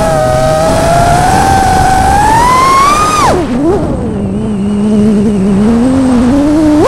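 FPV freestyle quadcopter's 2207 brushless motors and propellers whining. The pitch climbs for about three seconds, drops sharply as the throttle is chopped for a dive, stays low while creeping up, then jumps back up near the end as throttle is punched again.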